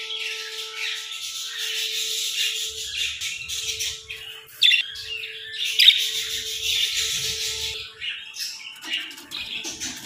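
Budgerigars chattering and warbling continuously in quick, high twitters, with two sharp, louder chirps about halfway through.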